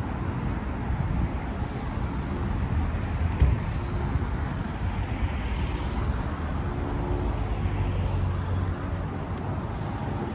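Outdoor town ambience dominated by a steady low rumble of road traffic, with an engine hum rising a little about two-thirds of the way through.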